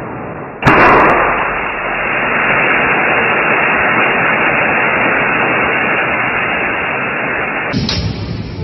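Static-like hiss from a reactor's audible radiation-count monitor. It comes in suddenly and loud about half a second in, with a short crackle at the start, as the core's power jumps. It then holds as a steady rushing static.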